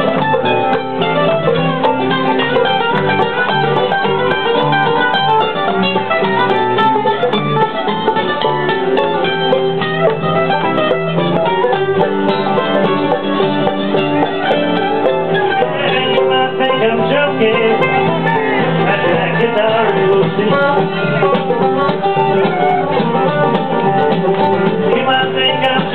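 Live bluegrass band playing, with banjo picking and strummed acoustic guitar to the fore; steady and loud throughout.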